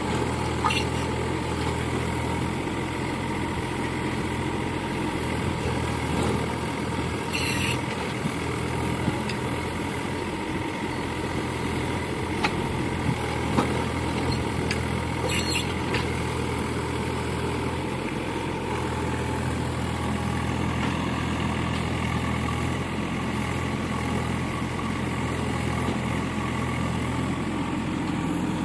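A 2.5-tonne mini excavator's Yanmar diesel engine running steadily, with a few short sharp knocks.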